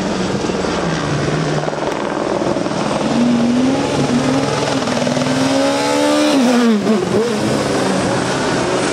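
A rally car's engine at speed on a stage, its note climbing as it accelerates toward the listener, dipping sharply and coming back up as it passes about seven seconds in, then rising again.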